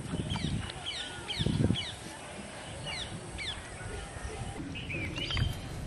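Birds chirping repeatedly in short rising and falling calls, with a few low muffled thumps and rustles, the loudest about a second and a half in.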